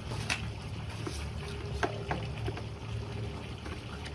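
A few light clicks and knocks of plastic pressure-washer parts being handled and fitted together, over a steady low rumble.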